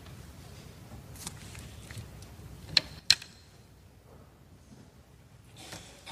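Quiet room tone with a steady low rumble, broken by two sharp clicks about a third of a second apart roughly three seconds in, with a few fainter ticks around them.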